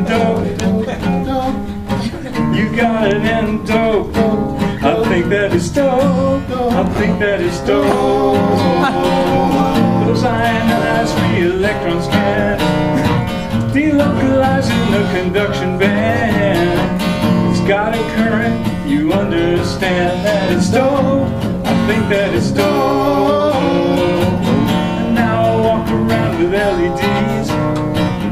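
Acoustic guitar being played live, chords and notes going on without a break.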